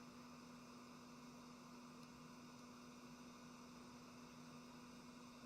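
Near silence: a faint steady electrical hum over a low hiss.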